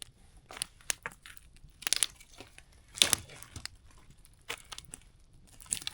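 Wood campfire crackling, with scattered sharp pops at irregular intervals and one louder, longer crackle about halfway through.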